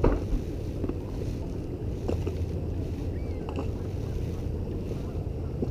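Wind buffeting the microphone on an open boat, a steady low rumble, with a sharp knock at the start and a few lighter knocks after.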